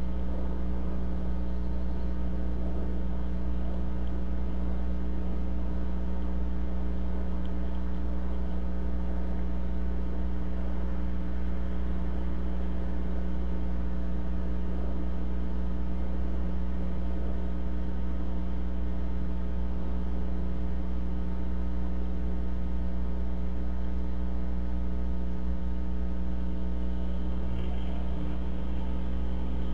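Steady electrical hum: a low drone with a stack of even tones above it, unchanging throughout.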